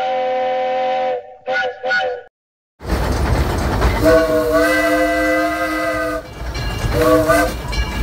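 A train whistle sounds a long chord and two short blasts. After a brief break, a steam locomotive's whistle blows one long blast and one short one over a steady rush of steam.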